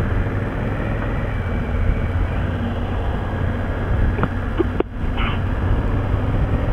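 Motorcycle riding noise at road speed: steady wind rush with a low engine drone, picked up by a helmet intercom microphone. The sound drops out for an instant about five seconds in.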